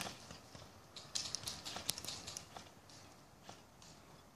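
Airsoft gunfire heard from a distance: an irregular run of sharp snapping clicks about a second in, lasting about a second and a half, then a few fainter ticks.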